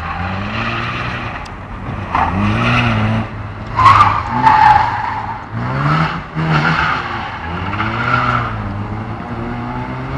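Opel Astra estate's engine revving up and dropping back over and over as it is driven hard around tight turns. Tyres squeal, loudest about four seconds in.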